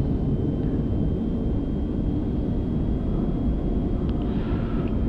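Airbus A380 cockpit noise while taxiing: a steady low rumble with a thin, steady high whine over it, and a faint click about four seconds in.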